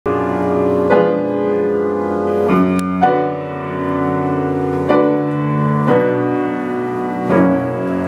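Grand piano playing slow, sustained chords, a new chord struck every second or two and left to ring.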